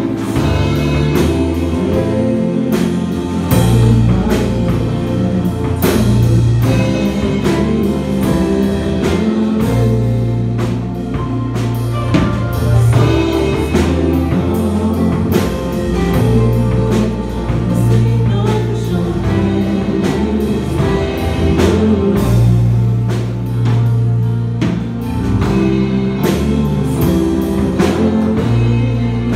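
A small vocal group singing an R&B song live with a band: several voices at microphones over drums keeping the beat and a bass line moving underneath.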